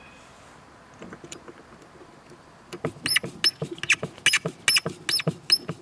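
A screwdriver turning the screw that holds the red hot-water handle onto a frost-free hose faucet's valve stem, squeaking. The squeaks come as a run of about a dozen short, high squeaks, roughly three a second, after a couple of seconds of faint clicks.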